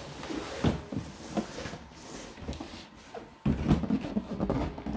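Large cardboard box being handled: scraping and sliding against a table with irregular knocks, a louder stretch of handling starting about three and a half seconds in as it is lifted.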